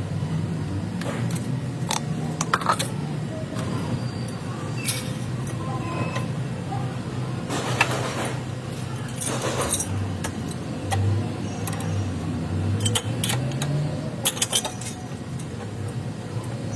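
A vehicle running with a steady low drone, with irregular metallic clicks and clinks scattered through it, several close together near the end.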